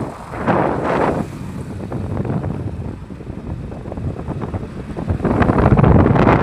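Wind buffeting the microphone in loud, irregular gusts, with no steady tone. It eases off around the middle and grows louder again from about five seconds in.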